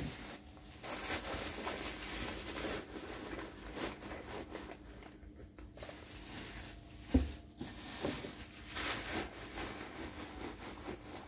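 Rustling and crinkling as a handbag is handled, turned over and searched inside, with a single sharp knock about seven seconds in.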